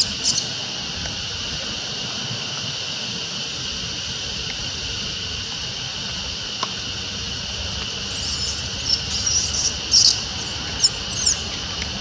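Steady, shrill drone of insects, with a run of short, high squeaks about eight to eleven seconds in.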